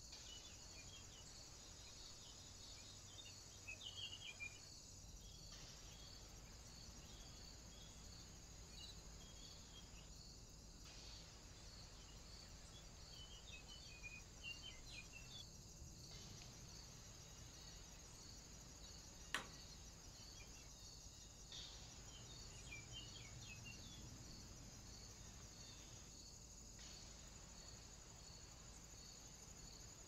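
Faint insects chirping in a steady, high, evenly pulsing trill, with a few clusters of soft high bird chirps and one sharp click about two-thirds of the way through. The sound drops out briefly about every five seconds.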